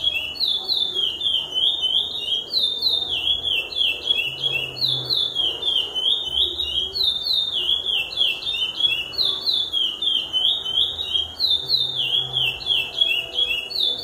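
Chestnut-bellied seed finch (curió) singing: a phrase of quick, descending whistled notes, repeated over and over with hardly a pause.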